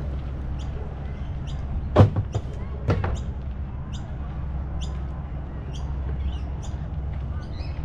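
Outdoor ambience: a steady low rumble with short, high chirps every half second or so, and two sharp knocks about a second apart, two and three seconds in, that are the loudest sounds.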